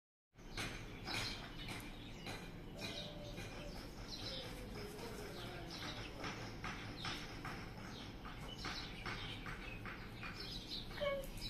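Birds chirping outdoors, many short calls in quick succession over a steady low background hum.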